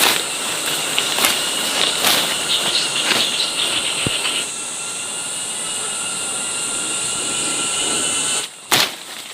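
Insects buzzing steadily in a high, even drone, with light knocks repeating under it about once a second. The drone cuts off abruptly near the end, followed by a sharp sound.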